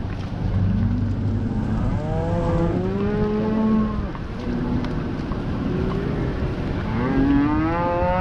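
A herd of Hereford and black Angus cattle mooing on a cattle drive, several cows calling in turn. The longest is a drawn-out moo about two seconds in, and another rising moo starts near the end, over a low steady rumble.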